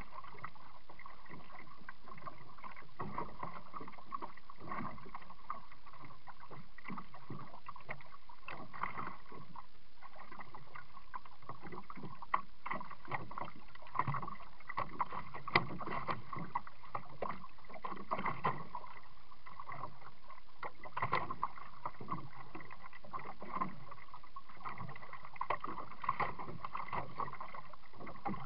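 Pelican 80 sit-in kayak being paddled: irregular water splashes and paddle knocks on the hull over a steady background hiss, muffled as heard through a small waterproof camera mounted on the kayak.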